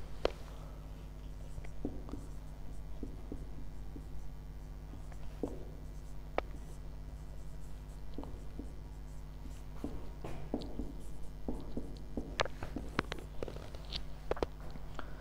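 Marker writing on a whiteboard: short scratchy strokes and taps, over a steady low electrical hum.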